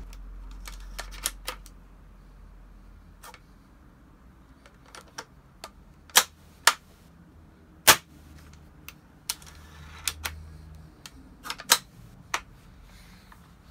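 Bolt of a Tokyo Marui M40A5 airsoft spring rifle fitted with an Angry Gun bolt set being worked by hand: a series of sharp, irregular metallic clicks and clacks, the loudest about eight seconds in.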